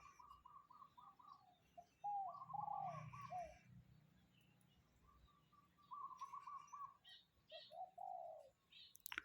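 Several birds calling: runs of quick, evenly repeated notes alternate with short down-slurred whistles. A sharp click sounds near the end.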